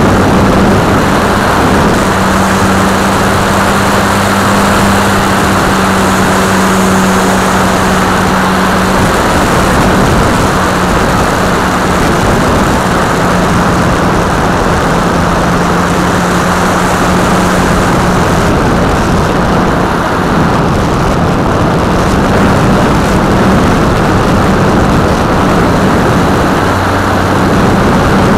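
Multiplex FunCub RC plane's electric motor and propeller running steadily in flight, heard from a camera on the plane under loud wind rush. The motor's hum shifts slightly in pitch midway.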